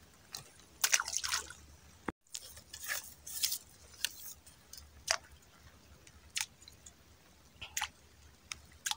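Small water plops and drips around a cricket bait floating on swamp water, a string of short irregular splashes as a small fish pecks at the bait, with a cluster about a second in and another around three seconds.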